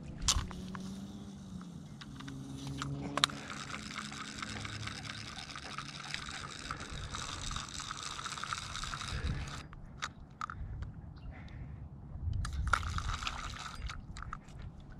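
Zebco Slingshot spincast reel being cranked to wind in the line, a steady whirring rattle for several seconds that stops abruptly, then a shorter second burst of cranking. A sharp click comes as the cranking starts, over low sloshing of water and wind.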